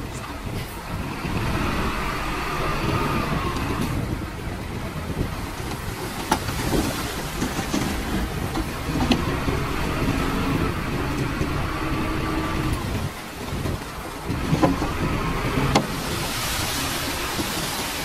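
Heavy diesel machinery working: a Komatsu D31A bulldozer and dump trucks running steadily, with a few sharp metallic clanks and brief whines.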